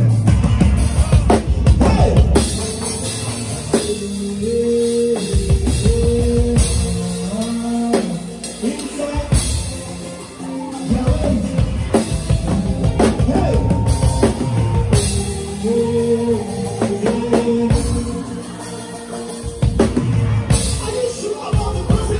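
Live band playing an instrumental groove: a drum kit with bass drum keeps the beat under held pitched notes from the other instruments.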